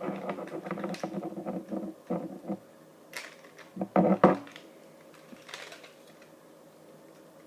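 Fingers working the battery connector clip and plastic parts inside an opened PS3 controller: a quick run of small plastic clicks and rattles, with a louder cluster of knocks about four seconds in.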